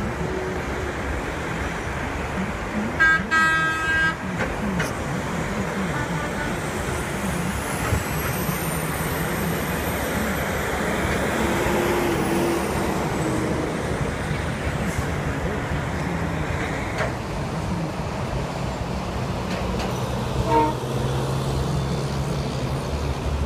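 Busy highway traffic: steady tyre and engine noise of cars and tractor-trailers, with a vehicle horn honking once, loudly and briefly, about three seconds in.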